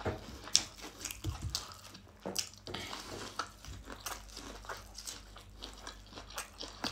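Biting into a piece of sweet corn on the cob and chewing: a run of small, irregular crunchy clicks.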